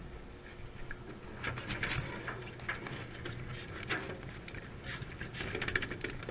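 Light clicks and rattles of fishing tackle being handled while a freshly caught scup is unhooked on deck, over a steady low hum from the boat's engine. The clicking comes thickest near the end.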